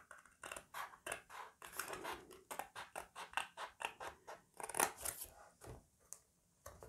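Stiff cardstock being slid, shifted and rubbed against a plastic paper trimmer, giving a quick series of light, scratchy ticks, about three to four a second.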